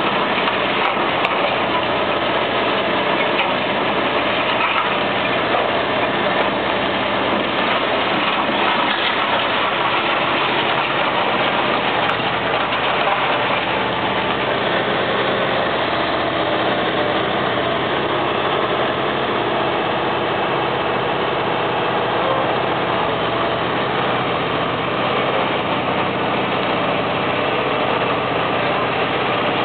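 Diesel engine of a Liebherr 974 long-reach demolition excavator running steadily under a dense, even din, with no distinct impacts.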